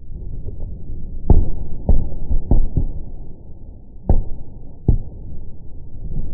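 Fireworks shells bursting in slow-motion playback: about six deep, thudding booms over a continuous low rumble.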